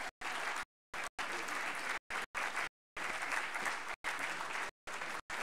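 Audience applauding at the end of a speech, the sound cutting out in several brief gaps.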